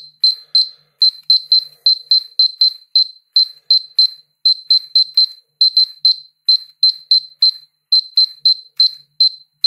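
Polimaster PM1703GNA dosimeter chirping loudly in short, high-pitched beeps, about three to four a second at uneven intervals. Each chirp marks a detected radiation count, so the random spacing follows the count rate.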